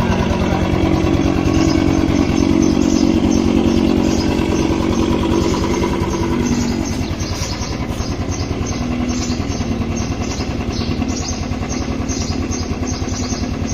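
Royal Enfield Classic 350's single-cylinder engine idling with a steady, rapid thump, running together with an Ola S1 Pro electric scooter's simulated vintage motorcycle sound. A humming tone under the thump fades away about seven seconds in.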